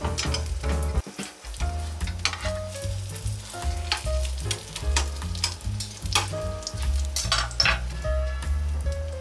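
Beaten egg frying in an oiled pan, sizzling with sharp crackles, over background music with a steady bass line.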